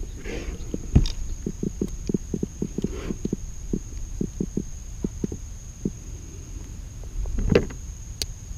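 Irregular dull knocks and thumps on a plastic fishing kayak as a landed fish is handled in a landing net, with a sharper knock about a second in and another near the end. A steady faint high tone runs underneath.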